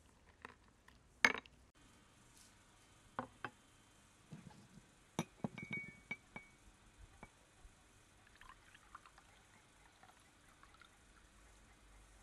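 Glassware and kitchen dishes being handled: scattered clinks and knocks, the loudest about a second in, with a short ringing note after a clink about five seconds in.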